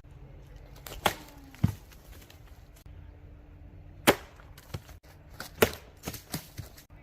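Bone Tactical Space Cowboy machete chopping: a series of sharp, irregularly spaced strikes, about eight in all, bunched near the start and in the second half.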